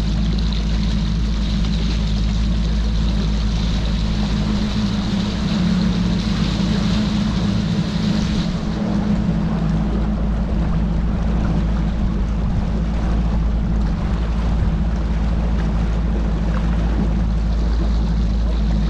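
Bass boat's outboard motor running steadily at low speed, a constant even hum.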